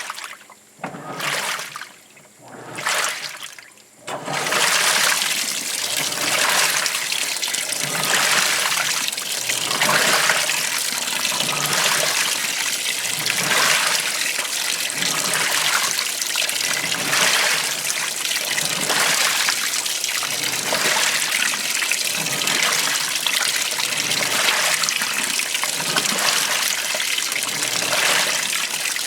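Washing machine: a few short splashes about a second apart, then from about four seconds in a steady rush of water running into the tub.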